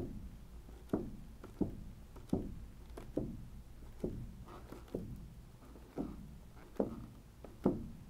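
A balloon dabbed again and again onto wet acrylic paint on a stretched canvas: a soft thump a little more than once a second, each dying away quickly.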